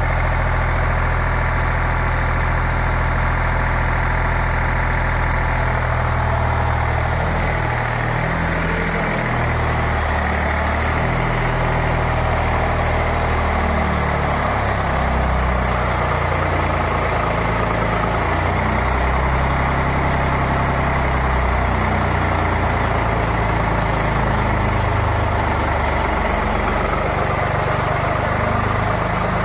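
Eicher three-cylinder air-cooled diesel engine driving a generator, running steadily. From about six seconds in, its note wavers and shifts while the generator powers a water-bucket load test, and a hiss rises alongside.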